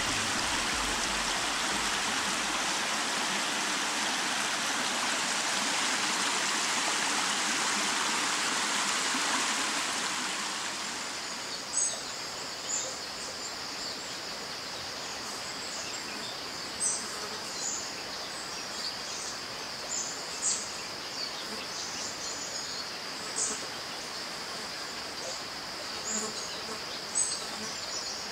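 Stream water rushing steadily, fading down about ten seconds in. Behind it are a steady high insect buzz and short high chirps every second or two.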